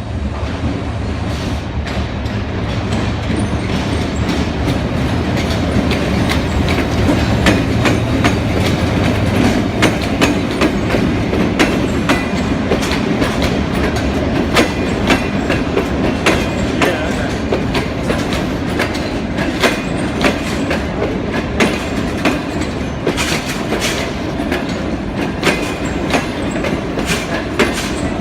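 Passenger train pulling into a station: a steady loud rumble with the clickety-clack of wheels over rail joints, many sharp clicks, and a low engine drone under it for about the first ten seconds.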